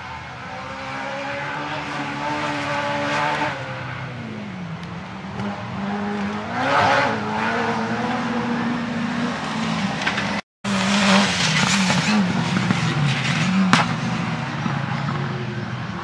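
Off-road racing car's engine revving hard, its pitch falling and rising again as it lifts and accelerates, with several bursts of rushing noise. A brief cut to silence about ten seconds in, then the engine running again.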